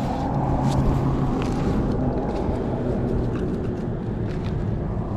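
Steady low rumble of road traffic, with a few faint clicks and rustles of handling.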